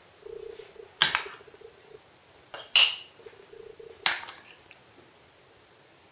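Metal serving spoon and fork clinking against a glass Pyrex baking dish and a china plate while sausages in sauce are dished up: three sharp clinks about one, three and four seconds in, with quieter scraping between.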